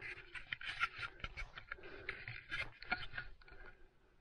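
Irregular light scraping and crunching sounds, many short clicks in quick, uneven succession.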